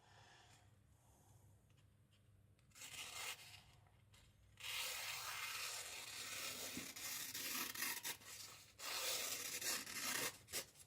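A freshly sharpened kiridashi blade slicing through paper to test its edge: a short cut about three seconds in, then longer stretches of continuous hissing cutting from about halfway through to near the end.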